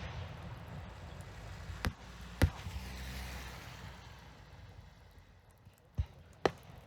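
Fireworks display: aerial shells bursting with sharp bangs, two about two seconds in and two more near the end, over a low rolling rumble that fades after the middle.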